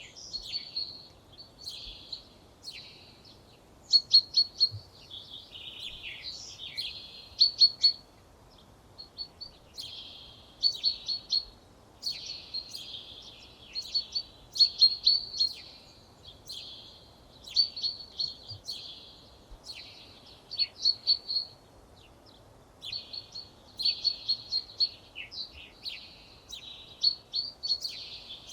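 A songbird singing: short phrases of rapid, sharp high notes, repeated every second or two with brief pauses between them.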